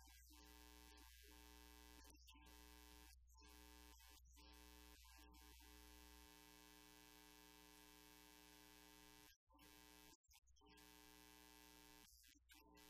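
Near silence: room tone with a faint steady electrical hum, briefly cutting out twice near the end.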